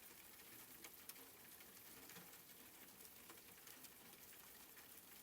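Faint steady rain falling, with light scattered drops ticking.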